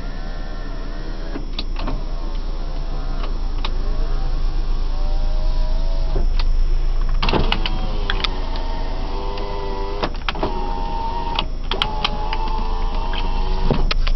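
A small electric motor whining in several runs of a few seconds each, with sharp clicks where it starts and stops, over a steady low hum inside a car cabin.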